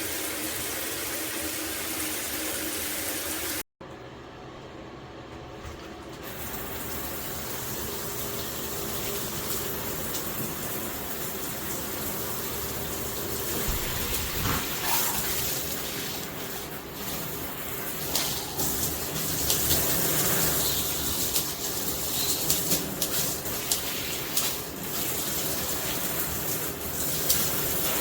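Shower head spraying water in a steady rush. It cuts out for an instant about four seconds in and resumes, with irregular splashing in the latter half.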